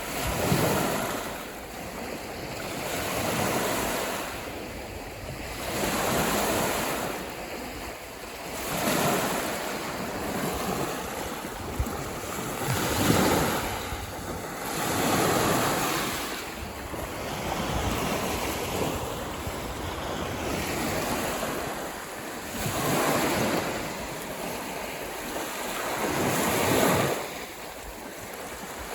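Waves on a large freshwater lake washing ashore, each one swelling and falling away about every two to three seconds, with wind blowing.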